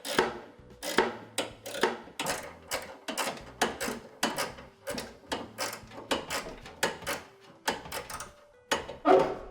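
Quick, irregular metallic clicking, several clicks a second, from a Torx driver working out the screws that hold a microwave magnetron in place, with a louder clack near the end.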